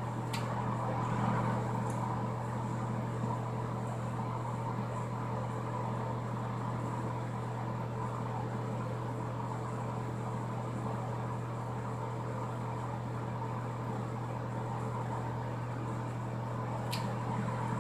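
Steady low hum of a ventilation fan running, with a faint click near the start and another near the end.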